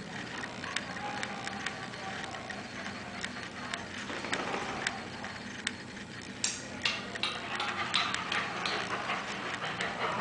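A schnoodle's claws clicking and tapping on a hard floor as it shifts its feet and walks about, with a busier patch of clicks and rustling from about six and a half seconds in as it trots back.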